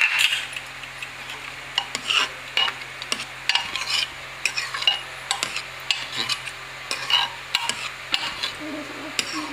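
Metal spoon stirring and scraping cooked red lentil dal in a pressure cooker pot, with irregular clicks and scrapes against the pot.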